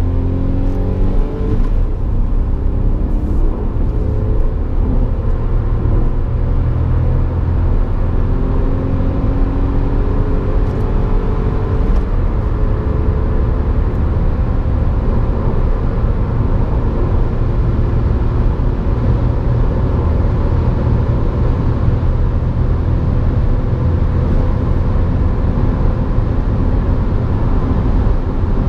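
Hyundai i10's 1.0-litre three-cylinder petrol engine pulling hard under full acceleration, heard from inside the cabin, its pitch climbing slowly over a heavy rumble of road and wind noise.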